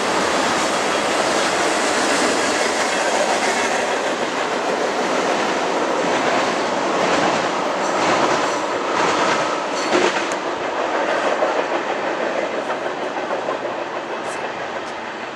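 Freight train of tank cars rolling past on the rails: steady wheel rumble and hiss, with a run of clickety-clack over rail joints about halfway through. The sound fades toward the end as the last cars draw away.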